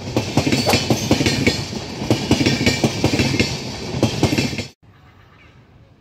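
Passenger train coaches passing at speed close by, wheels clacking rapidly and irregularly over rail joints with steady rumble. The sound cuts off abruptly near the end, leaving only faint background noise.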